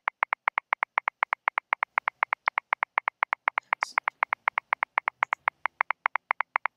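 A steady run of short, pitched electronic ticks, about eight a second with slightly varying loudness, like straight 16th notes. This is Ableton Live previewing a Logic 16th-note swing groove from the groove pool.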